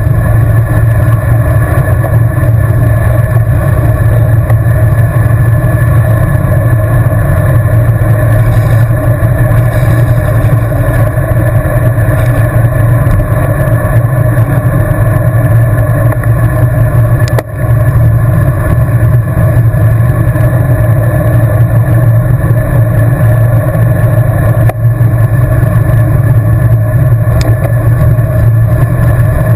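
Loud, steady rush of wind and road noise on the microphone of a camera riding along on a road bicycle at speed. The level dips briefly twice, about 17 and 25 seconds in.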